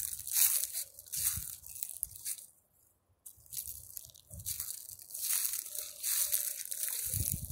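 Footsteps crunching through dry grass and fallen leaves, with a short pause about three seconds in.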